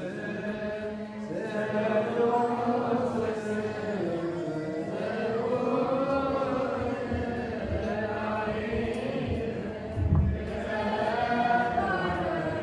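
Several voices chanting an Ethiopian Orthodox liturgical chant together in long, gliding, held phrases. There is a low thump about ten seconds in.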